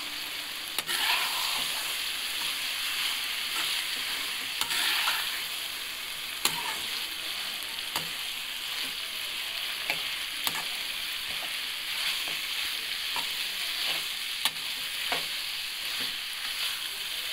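Frying masala sizzling in a metal kadai as chana dal is stirred in with a slotted metal spatula. The spatula scrapes through the mixture and clicks against the pan every second or two.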